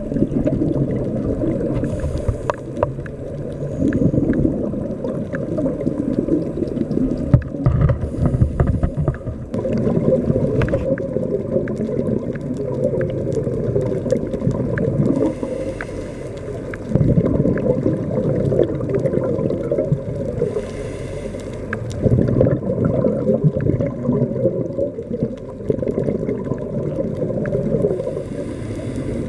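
Scuba diver's breathing heard through an underwater camera housing: muffled exhaled bubbles gurgling and rumbling from the regulator, swelling in surges every few seconds.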